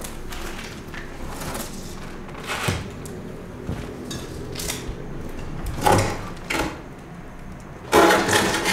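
A door and its broken frame being handled: several separate scraping and knocking noises a few seconds apart, the loudest and longest near the end.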